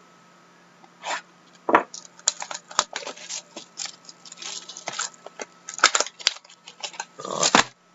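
Trading cards being handled and slid against one another: irregular rustles, scrapes and light clicks, busiest about two seconds in, near six seconds and near the end.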